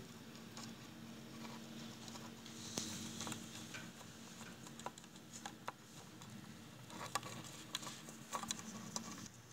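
Faint, irregular little clicks and scratches over a steady low hum, coming in loose clusters.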